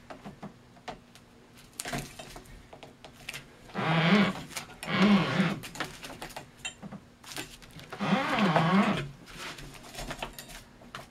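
Spiking twine drawn taut around a large cylinder fireworks shell, groaning in a wavering tone as it is pulled under tension, twice, each about a second long. Light knocks and clicks come between the pulls as the shell is handled on the roller turntable.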